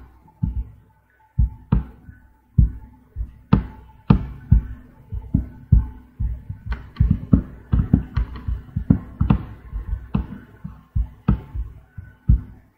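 A series of sharp, irregular knocks or taps, about two to three a second, over a faint steady hum.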